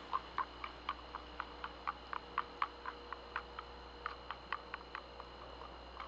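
A small maple stick stirring coffee grounds into hot water in a metal water bottle, tapping lightly against the inside of the bottle about four times a second. The ticking stops shortly before the end.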